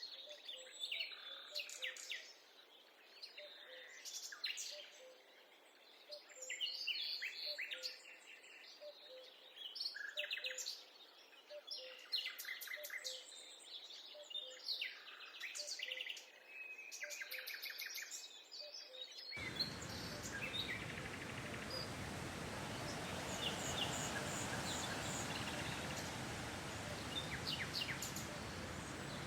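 Several forest birds chirping and calling in short, busy phrases. About two-thirds of the way through, the sound cuts suddenly to a steady rushing noise, with fainter bird calls still heard over it.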